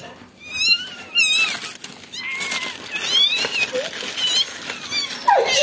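Newborn pitbull puppy squealing in a string of short, high-pitched, mewing cries.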